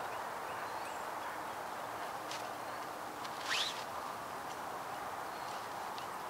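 Steady outdoor background noise with a bird's single short rising whistle about three and a half seconds in, plus a few faint high chirps.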